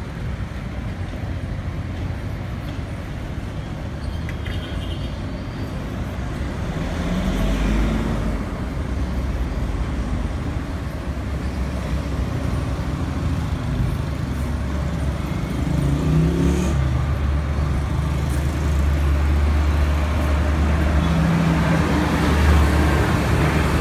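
Road traffic, with motor vehicle engines running close by; a deep engine rumble grows louder about a third of the way in and holds.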